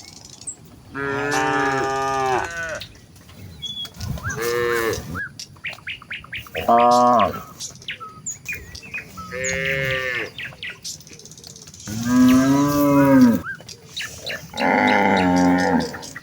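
A herd of cows mooing, six long moos one after another with short gaps between, at differing pitches from different animals.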